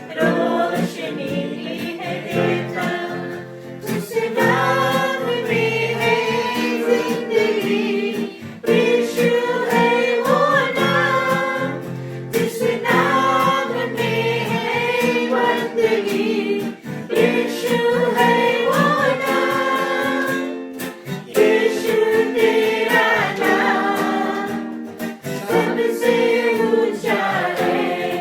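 Worship song: a group of voices singing over a plucked string accompaniment.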